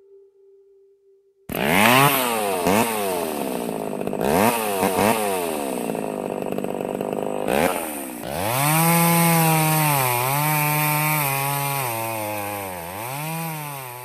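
Two-stroke chainsaw starting up suddenly about a second and a half in and revved in several quick blips. From about halfway it is held at high speed, its pitch sagging and recovering as the chain works through wood.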